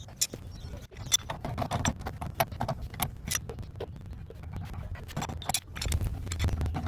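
Irregular light clicks and rattles of hard objects being handled, over a low rumble.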